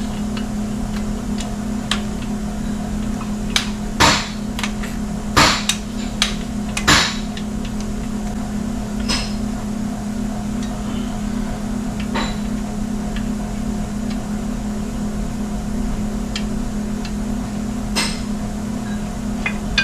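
Sharp metallic knocks and clinks of hand tools striking metal, spaced out, the loudest about four, five and a half and seven seconds in and another near the end, over a steady low hum.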